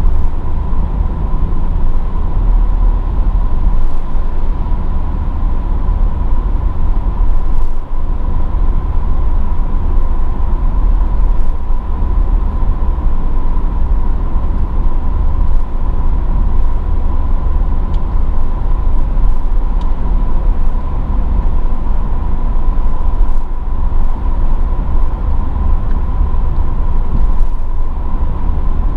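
Mercedes-AMG GLE 43 with its twin-turbo V6, driving at a steady pace: a loud, steady low rumble of engine, tyre and wind noise, with no revving, over a constant thin whine.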